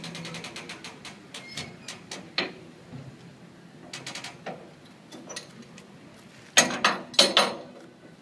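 Hand-worked winch gear of a bascule bridge: a fast ratchet clicking dies away at the start, followed by scattered single clicks and, near the end, a loud burst of metal clanking from the mechanism.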